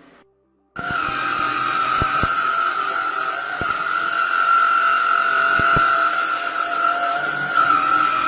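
Tineco A10 Hero cordless stick vacuum running, a loud steady high whine over a hiss, starting suddenly about a second in, with a few short clicks.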